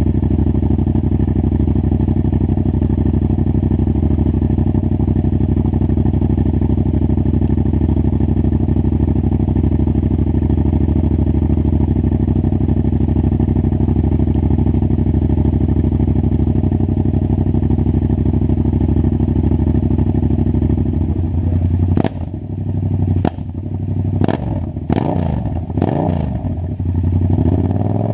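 2016 Yamaha FZ-07's parallel-twin engine through a cheap aftermarket full exhaust with the baffle removed, idling steadily. About 22 seconds in, it is given several quick throttle blips, the revs rising and falling, with sharp cracks among them.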